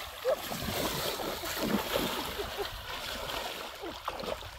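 Water splashing and sloshing as hands churn through shallow, muddy water, full of short bubbly gurgles; it dies down near the end.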